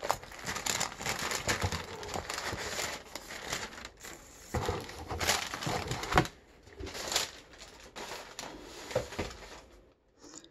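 Tissue paper and packaging rustling and crinkling in irregular bursts as a box is unpacked by hand, stopping shortly before the end.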